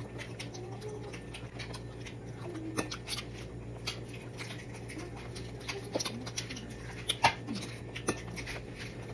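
Table-side eating sounds of balut: scattered sharp clicks and taps from the spoon, plate and eggshell, a few louder ones about three, six, seven and eight seconds in, over a steady low hum.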